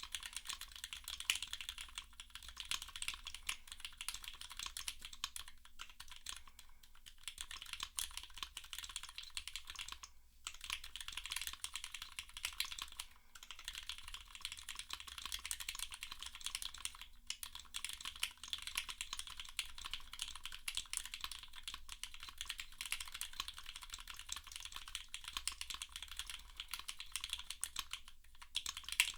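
Continuous fast typing on a custom 65% mechanical keyboard with lubed Cherry MX Black linear switches, a carbon fibre plate in a gasket mount and GMK keycaps: a dense run of keystrokes with a few brief pauses.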